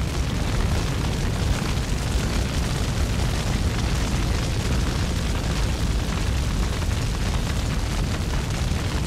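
Wildfire burning: a steady low roar with dense crackling.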